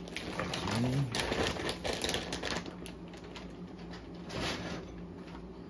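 Plastic bags of RC tyre foam inserts crinkling and rustling as they are picked up and handled, with many small clicks and crackles, busiest in the first couple of seconds.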